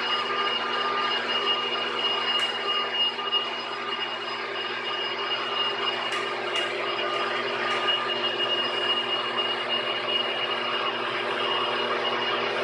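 Machine-shop machine tool running steadily, a constant mechanical hum with a steady high whine over it and a few faint clicks.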